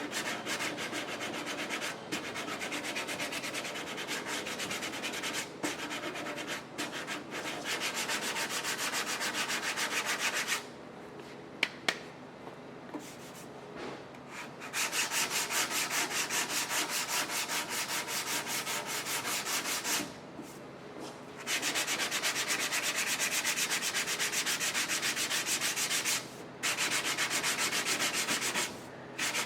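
Sandpaper on a sanding block rasping back and forth over body filler and guide coat on a thin sheet-metal truck door, in long runs broken by pauses about eleven and twenty seconds in. Two sharp clicks come during the first pause.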